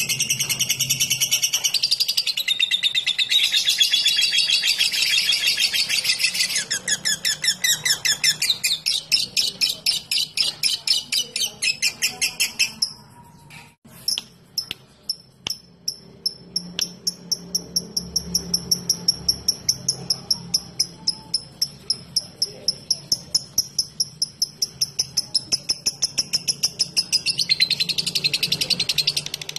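Lovebird calling: a long, dense, high-pitched chattering trill, the 'ngekek', then rapid evenly repeated chirps several a second, the typing-like 'ngetik'. After a brief break the chirps keep an even beat, and near the end the chatter starts up again.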